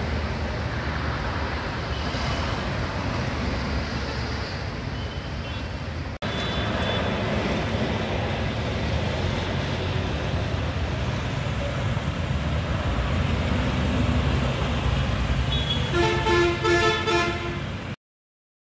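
Road traffic noise: a steady rumble of vehicles, cut off and resumed abruptly about six seconds in. Near the end a vehicle horn sounds in a few short honks.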